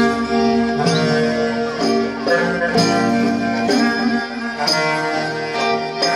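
A Greek folk band (kompania) playing a dance tune live, with a regular beat about once a second.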